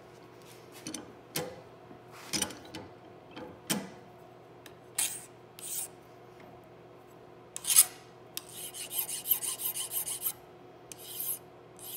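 Hand file scraping across the trimmed base of a rifle's rear sight clamped in a bench vise, squaring it up and rounding an edge. Single strokes come a second or so apart, one much louder than the rest past the middle, then a quick run of short strokes for about two seconds.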